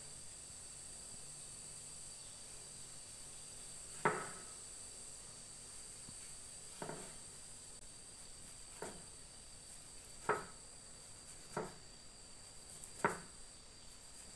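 A kitchen knife cutting pork on a round wooden chopping board: six sharp knocks of the blade striking the wood, one every second or two, the first the loudest. Behind them runs a steady high insect chirring.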